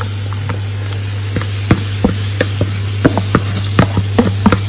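Wooden spatula scraping sliced artichokes off a cutting board into a pot of onion and potatoes cooking in oil: irregular sharp clicks and taps, coming faster after the first second or so, over a light sizzle and a steady low hum.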